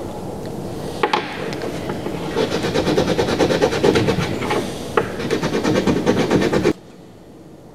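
Steel wool scrubbing an old coin against a workbench in rapid back-and-forth strokes, rubbing the grime off it, with a couple of sharp clicks; the scrubbing stops abruptly near the end.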